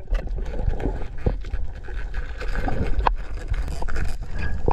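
Underwater action-camera audio on a coral reef: a dull low rumble of water moving against the camera housing, with scattered sharp clicks and crackles.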